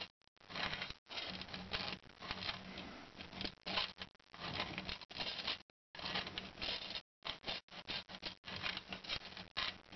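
Round file rasping back and forth along the edge of a steel No. 1.5 coil-spring trap's jaws, in a run of strokes with short breaks between them, smoothing the jaw edges.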